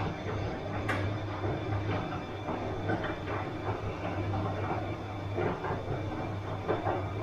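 Bosch washing machine running mid-cycle: a steady low motor hum under irregular soft knocks and swishes from the turning drum, with one sharp click about a second in.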